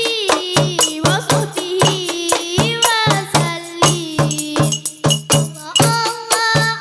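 A girl's voice singing salawat with long, ornamented melodic slides over a steady, fast rhythm of frame drums and tambourine jingles. The voice thins out a little past the middle, then another girl's voice takes up the line near the end.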